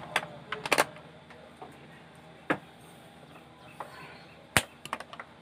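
Several sharp clicks and knocks from a small wired module and its leads being handled and set down on a TV power-supply circuit board, the loudest about four and a half seconds in.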